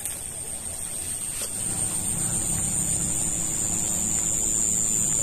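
An engine running in the distance, growing steadily louder, over a steady high-pitched whine.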